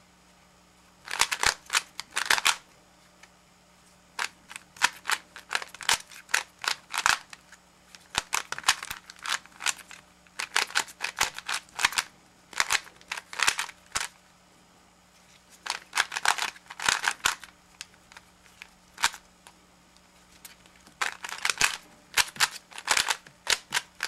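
A 3x3 Rubik's cube being turned at speed in a solve: rapid plastic clicking and clacking of the layers, in quick bursts separated by pauses of a second or two.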